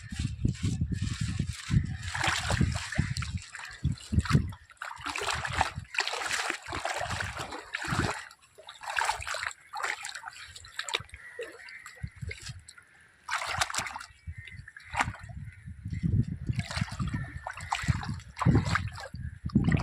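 Sea water splashing and sloshing irregularly as a fishing net and its catch are handled in the shallows, with low bumps of handling near the start and near the end.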